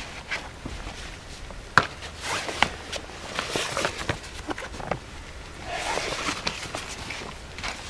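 Nylon fabric rustling and swishing as camping gear is pulled from a stuff sack, with scattered clicks and taps of its poles and a sharp click just under two seconds in.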